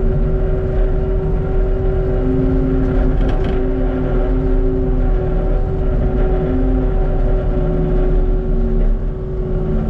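Cat 289D3 skid steer's diesel engine running hard inside the cab, with a steady hydraulic whine and a lower tone that rises and falls as the machine drives and pushes dirt with its bucket.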